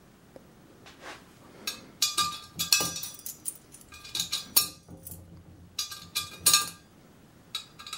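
A quarter being worked into the slot cut in the side of a small steel propane cylinder and dropped in: a series of sharp metallic clinks, each with a short ring from the steel.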